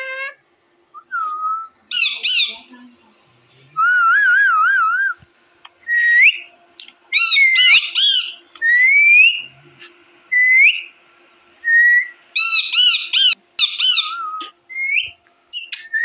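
Indian ringneck parakeets whistling and screeching: short rising whistle notes, a long warbling whistle about four seconds in, and three bouts of harsh, rapidly repeated screeches.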